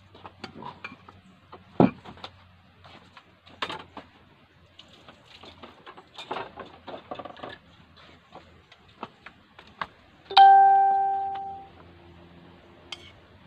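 Kitchenware being handled: scattered clicks and knocks, with a sharp knock about two seconds in and a burst of dish clatter in the middle. About ten seconds in, a dish or pot is struck once and rings clearly, fading over about a second.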